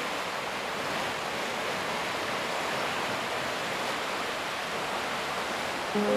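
Water rushing and churning through a lock gate's sluices into the lock chamber as the water levels are equalised. It is a steady, unbroken rush.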